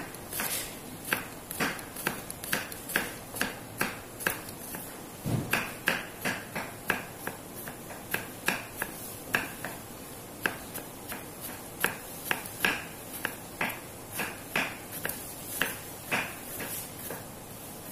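Kitchen knife slicing a garlic clove thinly on a wooden cutting board, the blade knocking on the board about twice a second.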